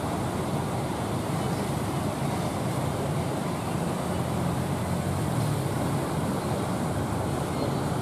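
Steady low rumble of breaking surf mixed with the engine of a wooden fishing boat driving through the waves.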